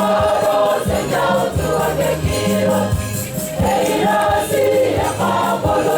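Church choir singing a hymn in several voices, over sustained low bass notes and repeated low drum-like strokes.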